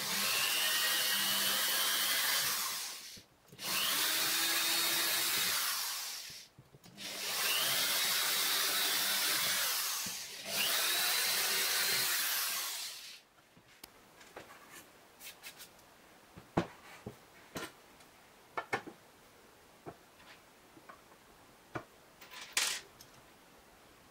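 Cordless drill boring four holes into a laminated wooden board, each run starting with a rising motor whine and lasting about three seconds. From about thirteen seconds in, only scattered light clicks and knocks.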